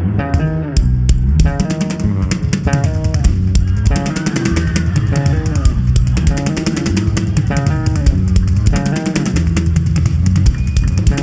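Gospel worship band playing an instrumental passage: quick repeated guitar notes over bass guitar and a steady drum-kit beat.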